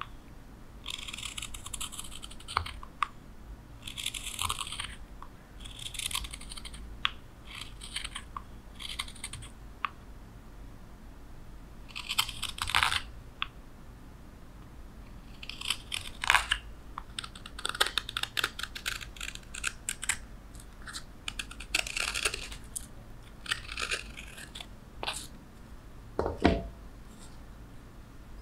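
Hook knife shaving thin curls from the inside of a wooden spoon bowl: a run of short, crisp scraping strokes with sharp clicks, in clusters with brief pauses. A single louder knock comes near the end.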